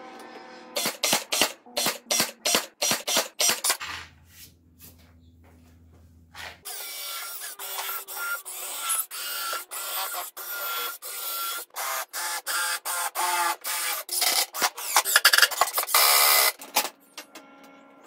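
Cordless drill and impact driver driving screws into a wooden frame: a run of short, rapid bursts, a lull of a few seconds, then a longer stretch of closely spaced bursts.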